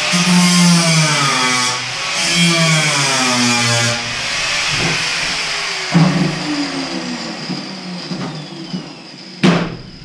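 Angle grinder cutting into the bus's sheet-metal walls, its motor pitch wavering up and down over a steady grinding hiss that eases about four seconds in. A sharp knock near the end.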